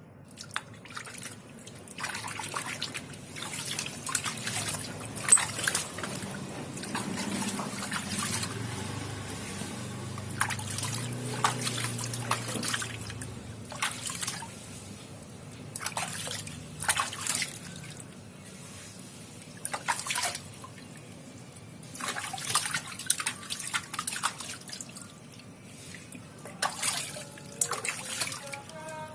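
Water splashing and dripping in irregular bursts as a baby monkey is bathed, with a steady low run of water a few seconds in.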